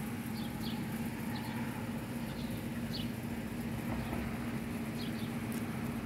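Small birds chirping in short, scattered high notes over a steady low hum.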